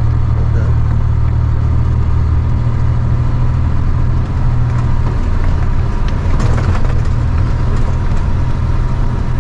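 Cargo truck's engine running with a steady low drone while the truck is driven along a rough dirt road.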